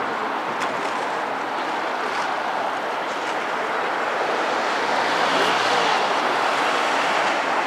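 City road traffic passing steadily, swelling about halfway through as a vehicle's engine passes close by.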